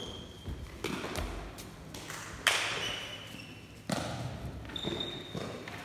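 A few sharp thuds of play and footwork on a sports-hall floor, the loudest about two and a half seconds in, with brief high squeaks of sports shoes, echoing in the large hall.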